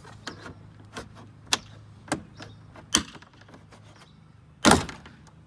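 Sharp clicks and snaps from a plastic pry tool being worked around a Ford F-150's inside door panel as its retaining clips pop loose. There are about half a dozen separate clicks, with the loudest and longest snap about three-quarters of the way through.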